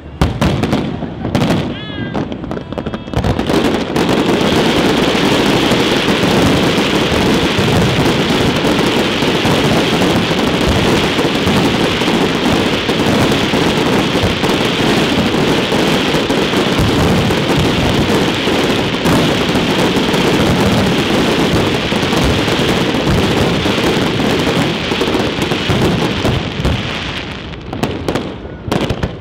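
Fireworks display: a few separate shell bursts, then from about four seconds in a dense barrage of bursts and crackle that runs on without a break, easing off near the end.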